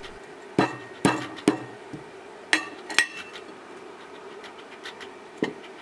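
Ginger being crushed by pounding: about six sharp knocks, unevenly spaced, in the first three seconds, some with a brief ring, then a single knock near the end.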